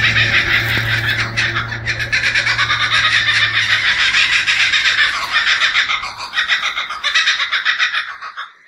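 Loud, high, rapidly pulsing outdoor animal chorus, with a low steady hum underneath that stops about six seconds in. The sound dies away near the end.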